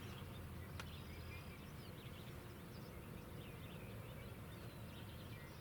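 Faint background of small birds chirping in short notes, over a low steady rumble of wind, with a single light click about a second in.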